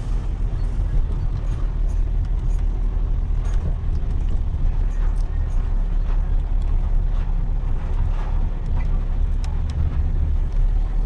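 Heavy truck's diesel engine running with a steady low drone, with a few faint ticks and rattles over it.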